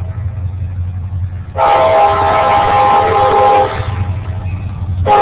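Nathan K5LA five-chime air horn on a CSX EMD SD70MAc locomotive blowing for a grade crossing. One long blast of about two seconds starts about a second and a half in, and the next blast begins at the very end, over the low rumble of the approaching train.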